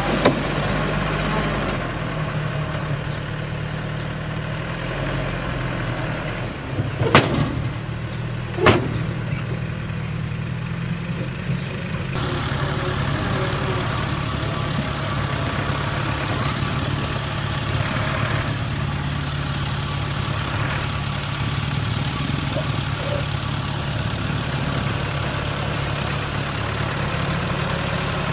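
Diesel engine of heavy construction machinery running steadily, with two sharp knocks about a second and a half apart a quarter of the way in.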